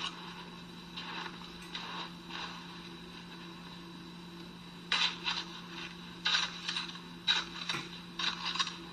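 Snow being scooped with a plastic shovel and thrown onto parachute cloth over a brush pile. There are a few faint scrapes at first, then from about halfway a cluster of sharper scrapes and swishes, over a steady low hum.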